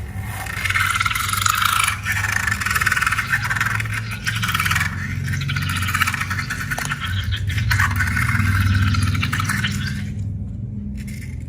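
Slime being mixed and scraped in a container: a wet scraping, rubbing sound in stretches of a second or two, fading near the end, over a steady low hum.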